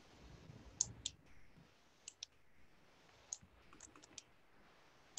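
Faint, irregular clicking at a computer: about eight short, sharp clicks spread over four seconds.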